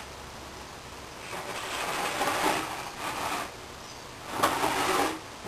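Pencil scratching along plywood as lines are drawn against a combination square: one long stroke of about two seconds starting a little over a second in, then a shorter stroke near the end.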